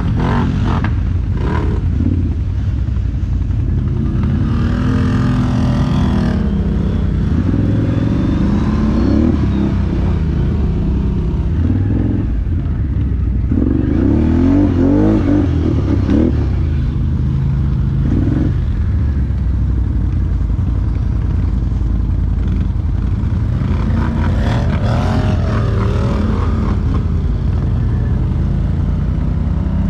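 ATV engine running continuously while riding, its revs rising and falling several times as the throttle is worked.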